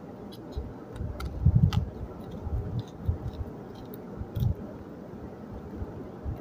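Kitchen knife peeling an onion held in the hand: scattered small clicks and scrapes of the blade on the onion's skin, with a few dull low bumps.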